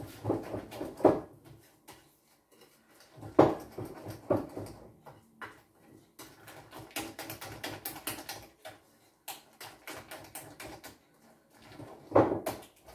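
Banana pancake batter being whisked by hand in a glass bowl: a rapid, irregular clicking of the whisk against the glass, with a few louder knocks, about a second in, three and a half seconds in and near the end.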